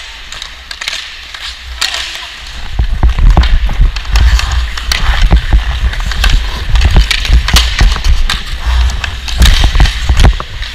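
Ice skate blades scraping and carving on rink ice, with sharp clicks of a hockey stick on the puck. From about three seconds in, heavy wind rumble buffets the helmet-mounted camera's microphone as the skater picks up speed.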